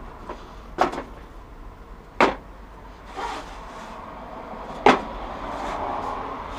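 Three sharp knocks about a second, two seconds and five seconds in, with faint rustling between: tools being handled while a ratchet and socket set is fetched.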